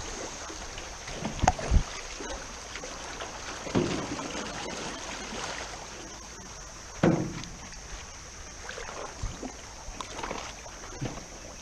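Aluminum canoe being paddled through a shallow river: paddle strokes splashing, with several sudden knocks and splashes, the loudest about seven seconds in, over steady rushing water.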